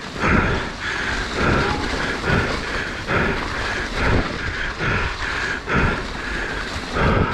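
Mountain bike running over rough, wet trail: repeated knocks and thuds from the bike and its tyres hitting bumps, roughly once a second, over a steady rushing noise.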